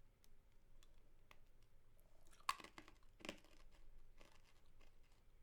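Close-up mouth sounds of eating a spicy mango lollipop: faint soft clicks, with two louder crunches about two and a half and three seconds in.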